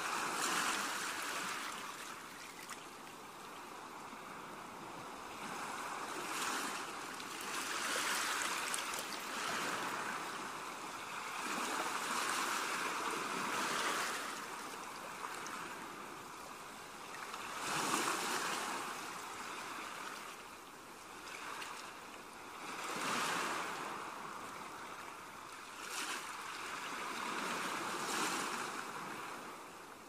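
Small, gentle sea waves breaking and washing up a sandy beach, the hiss of surf swelling and fading every few seconds.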